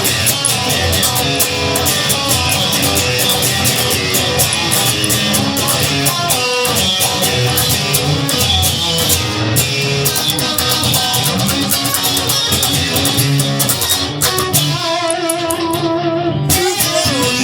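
Music: an instrumental guitar passage of a rock song, electric and bass guitar, with no singing.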